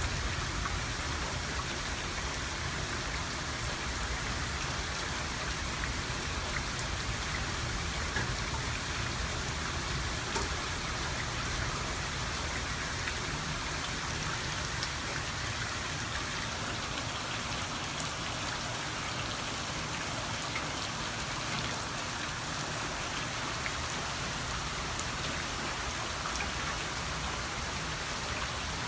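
Steady rain falling during a thunderstorm, with many small drops pattering on surfaces and a low rumble that fades out about halfway through.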